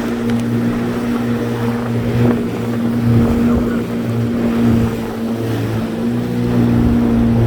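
Jet ski engine running at a steady, even pitch, with a hiss of spray and wind over it.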